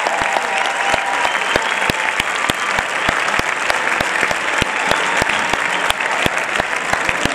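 Audience applauding steadily, a dense wash of clapping with sharp individual claps standing out.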